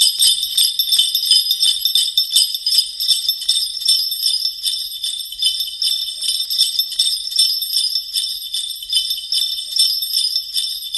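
Sleigh bells being shaken in a quick, steady rhythm, a continuous bright jingling.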